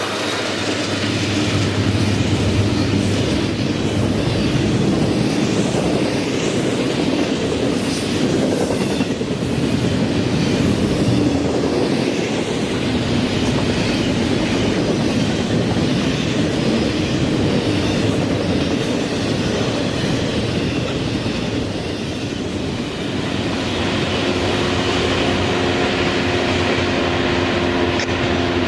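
A freight train rolling past: railcars running over the rails with a continuous rumble and clickety-clack of wheels, and some wheel squeal.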